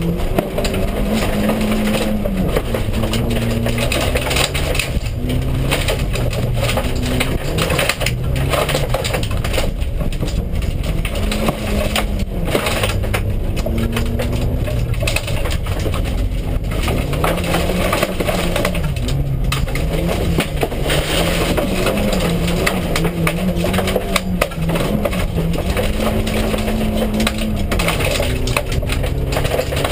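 Toyota Yaris rally car's engine heard from inside the cabin, its revs repeatedly climbing and dropping as it is driven hard through gears and corners. Loose gravel crunches and rattles against the car throughout.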